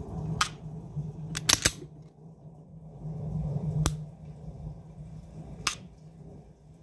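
Sharp metallic clicks from a Sig Sauer P365 pistol being handled and dry-fired. There are five clicks, two of them close together about a second and a half in.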